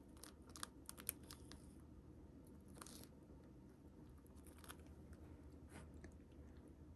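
Faint handling sounds from unboxing a plush backpack: a quick cluster of small clicks and crinkles in the first second and a half, then three short rustles, as of plastic packaging or fabric being handled.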